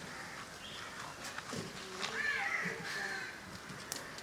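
A crow cawing, with harsh drawn-out caws about two seconds in, over a few faint knocks and scrapes.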